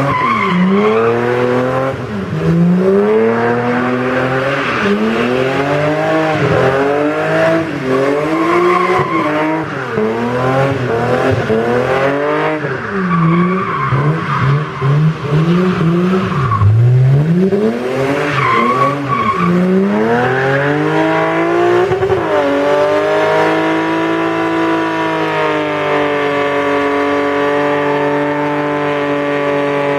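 BMW engine revving hard up and down over and over while the rear tyres spin and squeal in a smoky drift. About two-thirds of the way in the revs climb and are then held high and steady as the car holds a burnout.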